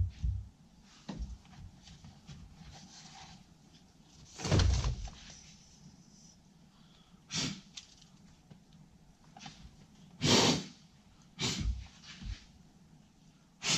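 Several separate knocks and scrapes of handling work, about five in all, the loudest about four and a half and ten seconds in, each lasting about half a second.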